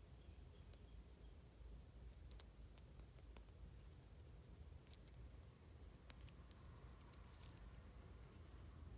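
Faint, scattered clicks and light scratching from small collectable toys and their packaging being handled during an unboxing; the two sharpest clicks come about two and three seconds in.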